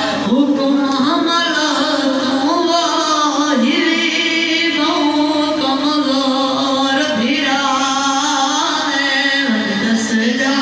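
Noha, a Shia mourning lament, sung in long held notes that bend and waver.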